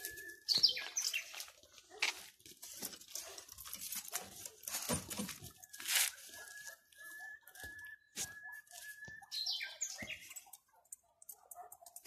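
A dog whining in a thin, high, drawn-out tone, held for about three seconds in the middle, with a couple of short falling yelps near the start and near the end. Sharp rustling and clicking noises come and go throughout.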